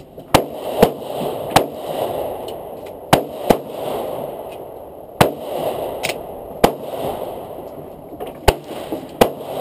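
Handgun shots at a shooting range, about ten sharp reports spaced irregularly, some in quick pairs, each trailed by a short echo.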